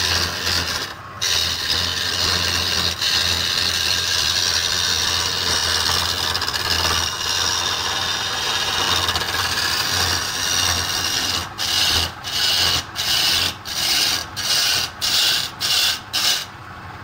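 Chisel cutting a log spinning on a wood lathe: a steady, loud scraping hiss of shavings coming off the wood, over a low hum. About two-thirds of the way through, the cutting turns into about nine short strokes in a row, a little under two a second.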